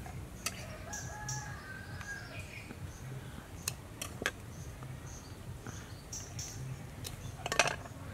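A rooster crows about a second in, over a background of chickens. Several sharp clicks and knocks of a small knife cutting snake on a woven bamboo tray, with a quick run of them near the end the loudest.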